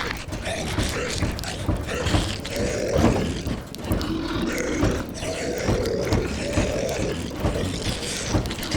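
Zombie sound effects: several throaty moans and growls rising and falling one after another. Under them runs a steady hiss of rain.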